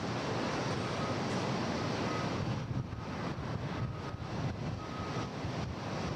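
Steady jet airliner engine noise, with wind rushing on the microphone.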